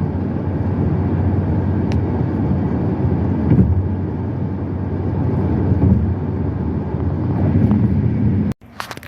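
Steady low rumble of road noise inside a moving car, cutting off suddenly near the end.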